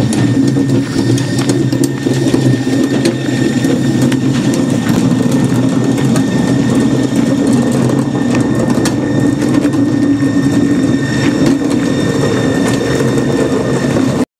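Blue-and-white Bayerische Zugspitzbahn electric train passing close by: a loud, steady rumble with a faint high tone and scattered clicks. It cuts off suddenly near the end.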